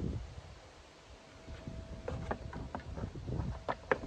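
Handling noise from a Swiss M1911 rifle being picked up and turned on a wooden table. Its wooden stock and metal parts give a run of light clicks and knocks from about halfway in, with one sharp click near the end.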